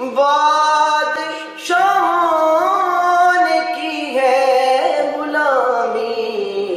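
A man singing a naat, an Urdu devotional poem, unaccompanied into a microphone, drawing out long held notes that bend and glide in pitch.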